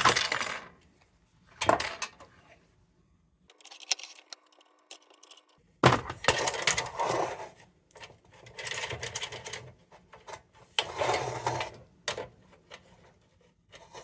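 Sheet-metal parts of an Embury Air Pilot No. 2 tin kerosene lantern clinking and rattling as it is handled and fitted together. There are a couple of sharp clinks in the first two seconds, then several longer bouts of rattling in the second half.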